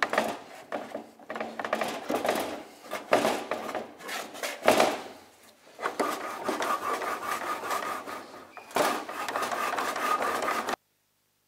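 A freshly greased Ski-Doo Elan ski spindle being worked up into its housing by hand: metal scraping, rubbing and clunking, with a steady rub from about six seconds in that cuts off abruptly near the end.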